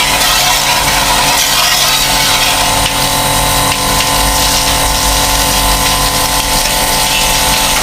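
Electric pressure washer pump running steadily with a constant hum, its water jet hissing as it sprays.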